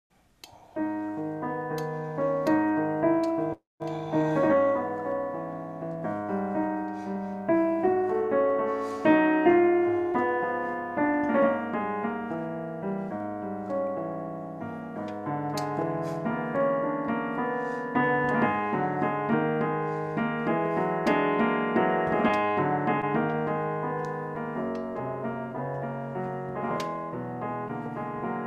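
Digital piano playing a Spanish piano piece: a steady flow of chords and melody. The sound drops out for a moment at about three and a half seconds in.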